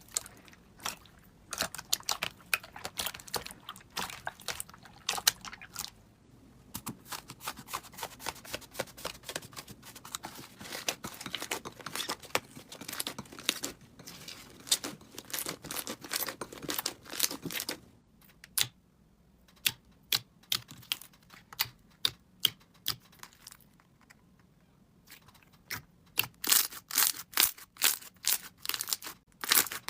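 Slime being squeezed and pressed by hand, giving dense crackling clicks and pops. The pops thin out about two-thirds of the way through, then return near the end as a quick run of sharp pops, about three a second.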